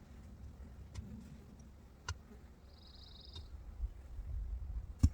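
Hand digging in soil with a digging bar and shovel: a few sharp knocks, the loudest near the end, over a low rumble, with a short high buzzing trill about three seconds in.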